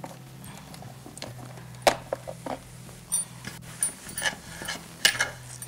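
Scattered knocks and clinks of kitchen handling as chopped vegetables are moved from a cutting board into the water of an electric food steamer. There are about half a dozen separate knocks, the sharpest about two seconds in, and a few short ringing clinks just after three seconds, over a low steady hum.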